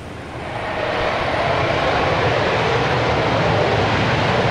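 Lockheed Martin F-35A Lightning II's single Pratt & Whitney F135 turbofan running up as the jet starts its takeoff roll: the jet noise swells over about the first second, then holds steady and loud.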